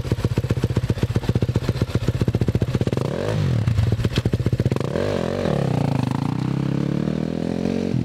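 Dirt bike engine idling with a fast, even putter, revved in two quick blips about three and five seconds in, then the revs climb steadily as the bike pulls away.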